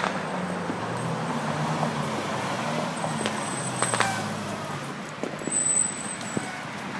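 Road traffic passing close by: a vehicle engine's hum over steady tyre noise, fading out about five seconds in. There are a few short sharp clicks and a brief high squeal near the end.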